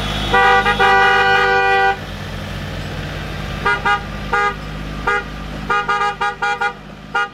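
Car horns of a wedding convoy honking in celebration: one long two-note blast for about two seconds, then a couple of short toots and a quick run of short toots near the end. Car engines run at a low speed underneath.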